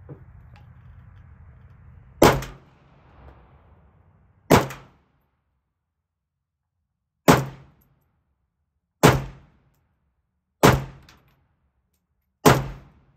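AK-47-pattern rifle in 7.62×39 mm fired six times as slow, single semi-automatic shots, one every two to three seconds. Each is a sharp crack with a short echo.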